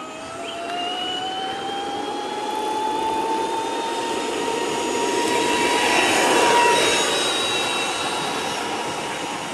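Cordless drill motor driving a homemade electric longboard, its whine rising in pitch over the first several seconds as the board picks up speed, then holding steady. Under it runs a rushing noise that swells about six seconds in.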